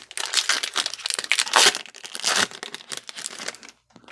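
Foil wrapper of a Topps baseball card pack crinkling and tearing as it is opened by hand: a dense, irregular crackle that stops shortly before the end.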